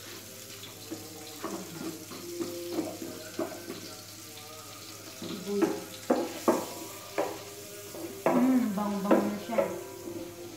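Garlic sizzling as it sautés in butter in a large metal pot, being browned. A wooden spatula stirs it, knocking against the pot several times in the second half.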